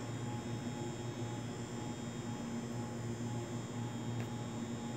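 Steady low electrical hum with a faint hiss.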